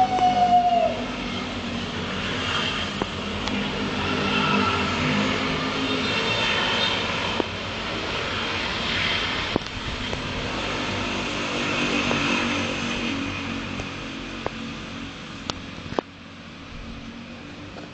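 Street traffic: vehicle engines running and passing, with a few sharp clicks, and the noise dropping off suddenly near the end.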